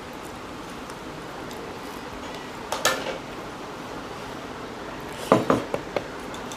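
Clinks and taps against dinner plates as food is eaten and mixed by hand: a short cluster a little under three seconds in and a louder cluster of several clinks about five seconds in, over steady background noise.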